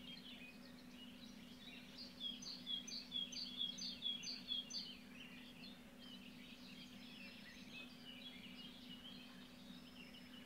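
Small birds singing, many short high chirps, with a run of loud repeated notes about two a second from about two seconds in, over a faint steady low hum.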